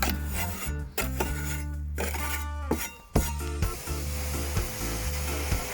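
Background music, an instrumental stretch with a steady bass line; about three and a half seconds in, a rasping hiss joins it and runs on.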